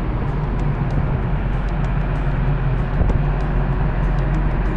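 Steady low drone of a ro-ro ferry's engines heard from its deck, over a constant rushing noise, with faint scattered ticks.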